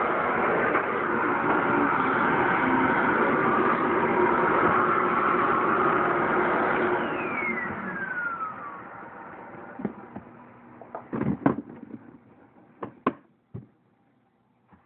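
Hoover Tempo Widepath bagged upright vacuum running steadily, then switched off about seven seconds in, its motor whine falling in pitch as it spins down. A few sharp clicks and knocks follow near the end.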